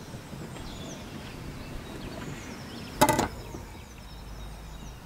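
Knife slicing cooked chicken breast on a cutting board, quiet apart from one sharp knock of the blade on the board about three seconds in.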